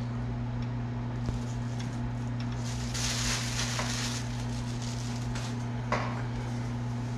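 Clear plastic bag crinkling as it is handled, loudest for about a second starting three seconds in, over a steady low electrical hum; a single sharp click near the end.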